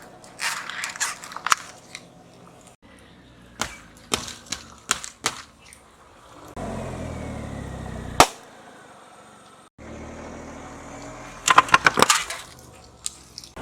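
Objects cracking and crunching as a car tyre rolls over and crushes them, in a series of sharp snaps and crackling runs. A car's low running hum is heard for a moment before the loudest single snap, about eight seconds in.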